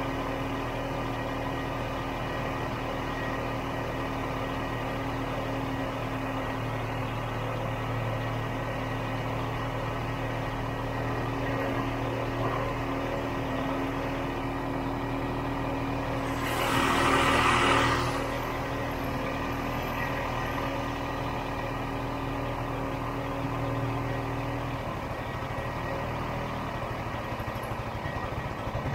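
Snowmobile engine idling steadily. Around the middle a loud rush of noise lasts about a second and a half, and near the end the deeper part of the engine hum drops away.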